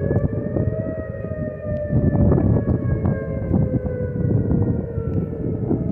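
Outdoor tornado warning siren sounding a sustained wail, its pitch rising slightly at first and then easing gently downward. A loud, gusting low rumble runs underneath.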